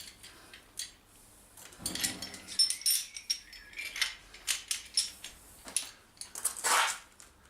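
Parcel packaging being handled and unwrapped: irregular crinkling and rustling with small clicks and clinks, including a longer rustle near the end.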